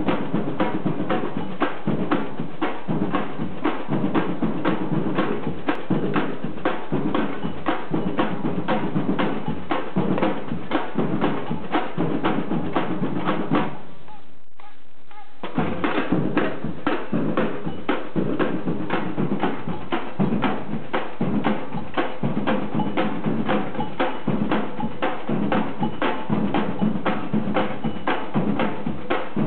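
Workshop noise: fast, steady rhythmic banging that runs on without let-up, with a break of about a second and a half midway.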